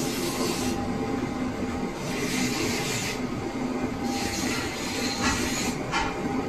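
Steady mechanical hum of workshop machinery, with a constant drone and a hiss that swells and fades. A few light clicks come about five to six seconds in.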